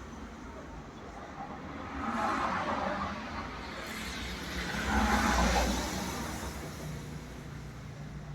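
Road vehicles passing by: two swells of traffic noise, about two and five seconds in, each rising and fading over a steady low hum.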